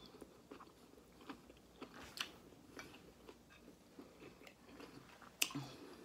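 A person chewing a mouthful of cooked food with closed-mouth chewing, making faint, irregular wet clicks and smacks. A sharper click comes near the end.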